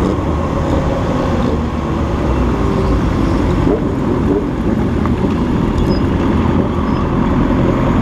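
Motorcycle running on the road, heard from the rider's own bike, under a steady rush of wind on the microphone. The engine note slides up and down briefly near the middle as the bike slows into a curve.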